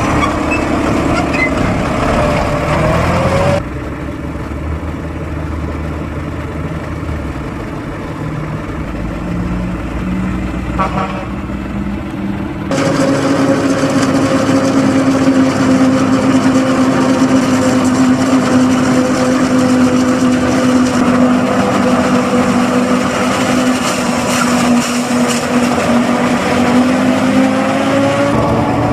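Farm tractor engine pulling a tipping trailer, then a John Deere 7500 self-propelled forage harvester chopping standing maize with a tractor and trailer running alongside. The harvester gives a loud steady drone with a whine that sags slightly and rises again near the end.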